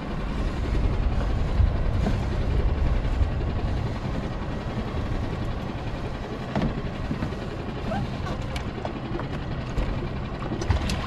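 Steady low rumble aboard a small boat at sea, with a few short knocks in the last few seconds.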